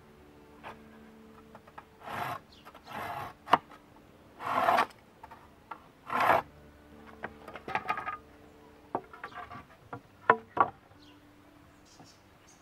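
Weathered pallet boards scraped across one another in four rough strokes of about half a second each, followed by a few sharp wooden knocks as the boards are set into a frame.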